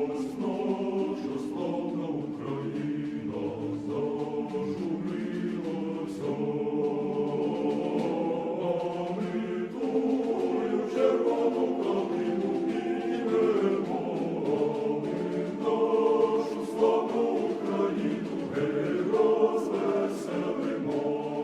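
Choral music: several voices singing held chords together, slow and steady.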